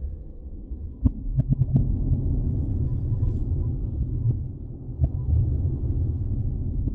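Wind buffeting the microphone in a low, unsteady rumble, with a few sharp knocks about a second in and another near the five-second mark.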